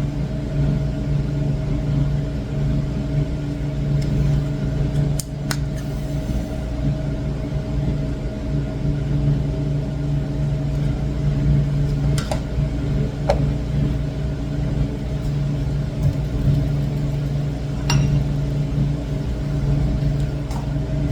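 A machine-shop electric motor running with a steady hum, and a few light metallic clicks in between.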